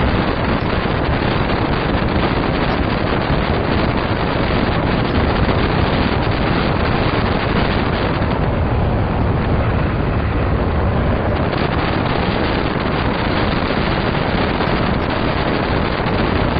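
Strong wind buffeting the microphone: a loud, steady rush of noise heaviest in the low end, with no clear breaks.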